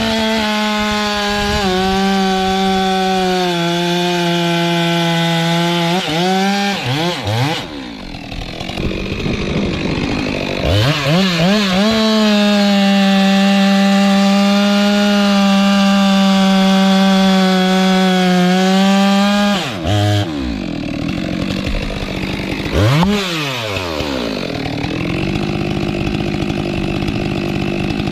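Two-stroke Stihl chainsaw cutting frangipani trunk wood: it revs up and holds at full speed through a cut of about six seconds, drops back to idle, then revs up for a second cut of about eight seconds. Near the end it is revved once briefly and settles to idle.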